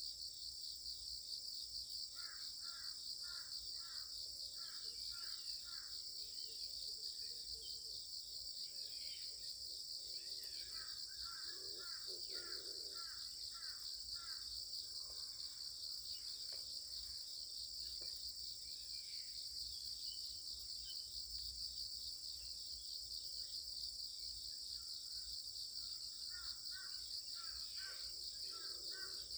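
Steady high-pitched insect chorus, with a bird calling in short series of quick repeated notes three times: about two seconds in, in the middle, and near the end.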